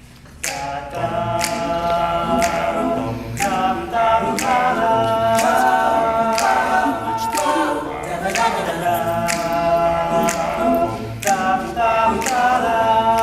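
Male a cappella group singing held, wordless chords, coming in about half a second in, with a sharp percussive click about twice a second keeping the beat.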